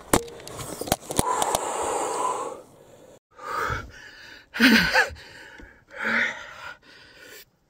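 A man's heavy, shaky breathing: three loud gasps and sighs in the second half, after clicks and rustling of the camera being handled. A hunter out of breath with excitement just after bringing down a moose.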